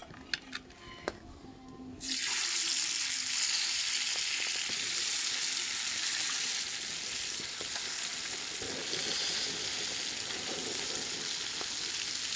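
Oil crackling with a few pops in a pan, then a sudden loud, steady sizzle from about two seconds in as masala-coated fish pieces shallow-fry in the hot oil.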